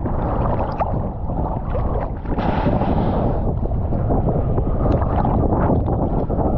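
Strong wind buffeting the microphone, with choppy water splashing and sloshing around a swimmer out in big surf.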